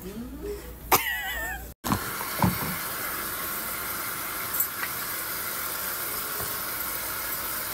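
Water running into a salon shampoo bowl, a steady hiss that starts suddenly about two seconds in and holds on unchanged.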